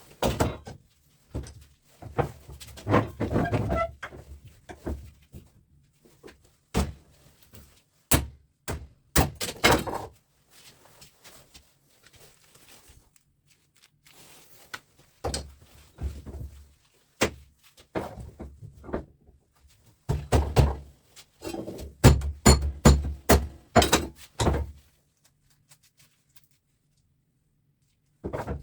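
Hand-tool work on steel fan motors: irregular hammer blows, knocks and clanks of metal parts, coming in bunches with quiet spells between.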